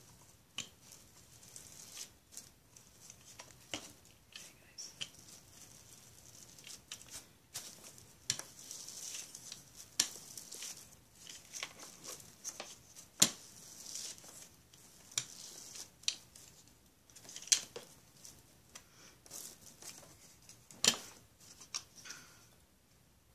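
Plastic wrap crinkling and crackling as a hand roller is run over it and hands press it down onto wet paint, with many small irregular clicks and a couple of sharper snaps, about 13 and 21 seconds in.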